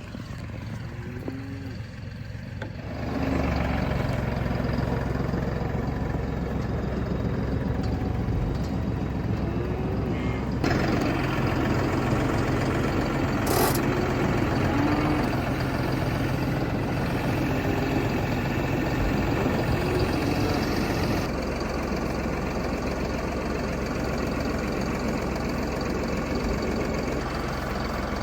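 A vehicle engine running steadily, getting louder about three seconds in and shifting in level twice, with a single sharp knock a little before the middle.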